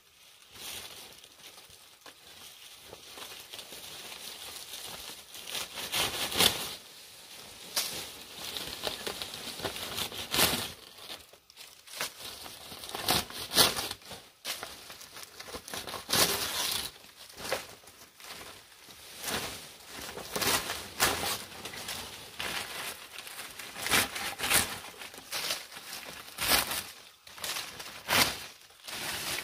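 Palm-leaf thatch rustling and crackling as the leaves are handled and pushed into a hut roof, in irregular strokes with sharp snaps now and then.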